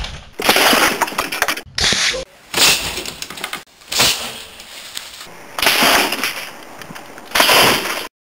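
A run of about six loud blasts and smashing crashes, several of them lasting about a second, from a cannon-themed intro montage. It cuts off abruptly near the end.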